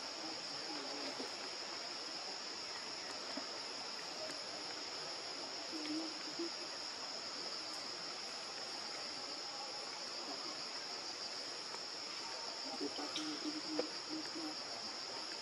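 Steady, unbroken high-pitched drone of forest insects.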